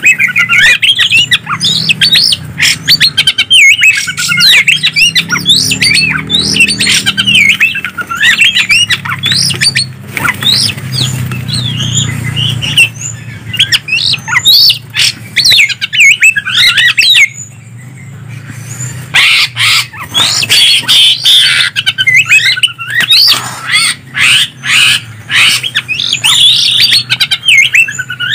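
Greater green leafbird (cucak ijo) and oriental magpie-robin (kacer) singing back and forth in a fast, loud run of whistles, trills and harsh squawks. The song breaks off in a short lull about two-thirds of the way through, over a faint low hum.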